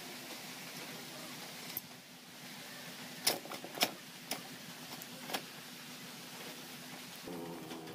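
A few short metallic clinks and taps as the steel shaft and coil-spring drum of a rolling shutter are handled, over a steady low hiss.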